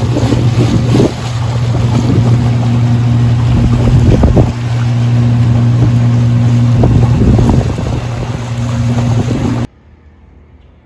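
Small boat's outboard motor running steadily under way, with water rushing past the aluminum hull and wind buffeting the microphone. It cuts off abruptly near the end, leaving only faint ambience.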